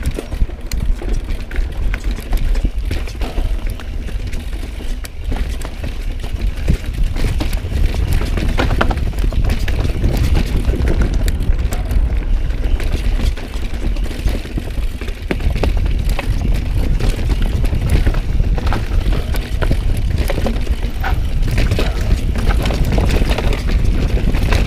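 Mountain bike clattering down a rough, rocky downhill trail: a steady heavy rumble of wind buffeting the camera's microphone, with many sharp knocks and rattles from the tyres, chain and frame hitting rocks and roots.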